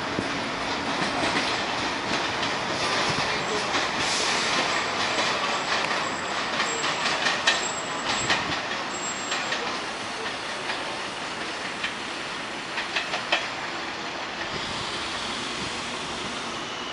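R46 subway train pulling away and rounding a curve: steady wheel and track noise with clicks over the rail joints and a thin high wheel squeal in the middle, getting fainter toward the end as the train recedes.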